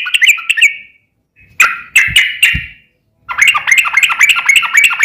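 Yellow-vented bulbul (trucukan) singing its long rolling song. A fast run of bubbling notes ends about a second in, then after a pause come three separate notes, and then another long rapid run of notes.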